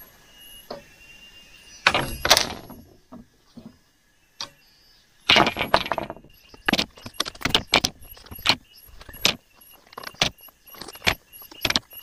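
Split bamboo slats being scraped and knocked clean by hand: a burst of scraping about two seconds in and another around five seconds, then a run of sharp, irregular knocks.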